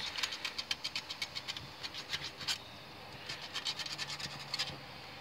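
Hand file scraping lightly across the edge of a hole in a cast-iron Chevy 3.1 V6 engine block deck, deburring it. It goes as a quick run of short scratches, a brief pause just past halfway, then another run.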